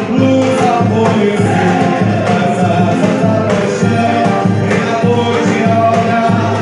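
Live music: a group singing together over drums and hand percussion keeping a steady beat.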